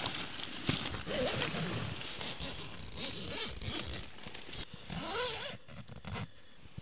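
A tent zipper being pulled, with the tent fabric rustling.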